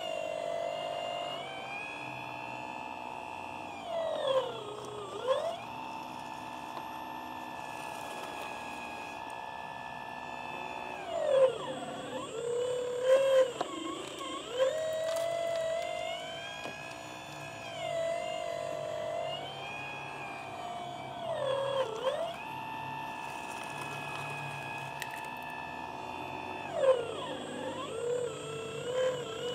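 Scratch-built 1/10 scale RC Volvo EC300D excavator's motor whining steadily, its pitch sagging and recovering several times as it comes under load while the arm digs, lifts and swings. There are a few louder moments around the middle, as the bucket tips its load into the dump truck bed.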